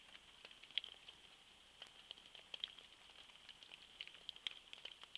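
Faint raindrops ticking irregularly against a nearby surface, several ticks a second, over a steady high-pitched hiss.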